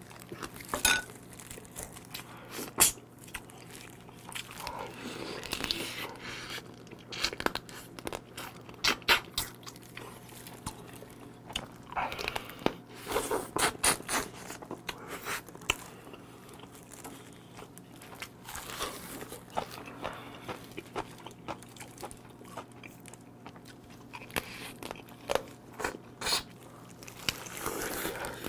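Close-up eating sounds of raw soy-marinated swimming crab: irregular sharp crunches as teeth bite into the crab shell and legs, mixed with wet chewing and sucking.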